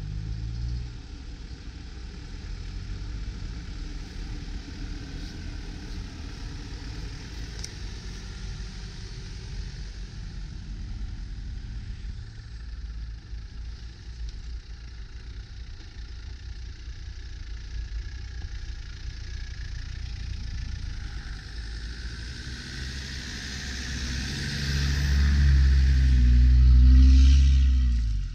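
Land Rover Defender's engine running as it drives through deep snow, growing louder as it approaches and loudest as it passes close by in the last few seconds, with its tyres churning the snow.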